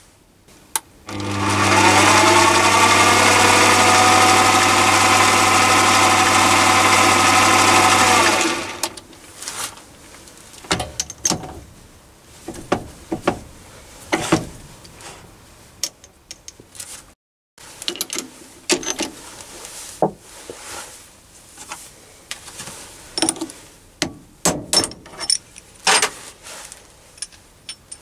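Metal mini lathe switched on, its motor whine rising as the spindle comes up to speed, then running steadily for about seven seconds with the workpiece turning on the tailstock live centre before it is switched off and winds down. After that come scattered light clicks and knocks of metal parts being handled.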